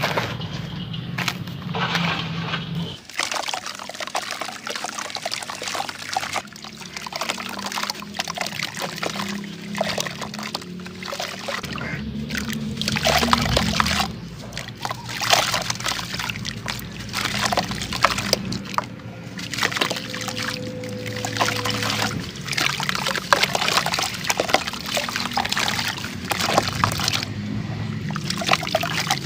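For about three seconds, hands rub and crumble dry gritty soil. Then the sound changes abruptly to a crumbly block being dipped and broken apart in a bucket of water: water sloshing and splashing, with wet crumbs dropping back into it.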